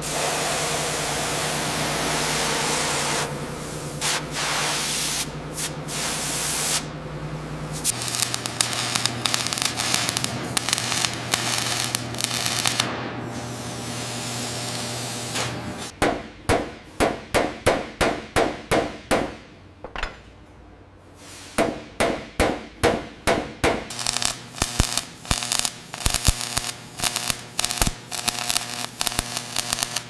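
Metal restoration work: a steady spraying hiss for the first several seconds, then runs of sharp hammer strikes on metal, about two a second, in two spells.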